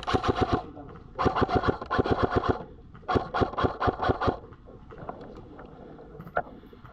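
Airsoft rifle firing on full auto: a short burst at the start, then two longer bursts of rapid, evenly spaced shots, each about a second and a half long.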